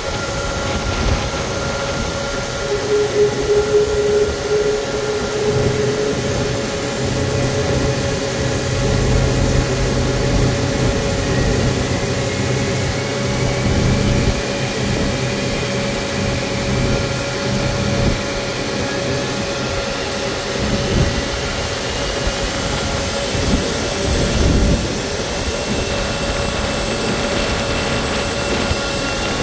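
KC-135R Stratotanker's four CFM56 (F108) turbofan engines heard from inside the cockpit: a steady hum and rumble with several steady tones, and a high whine that slowly rises from about a third of the way in as the engines spool up for takeoff.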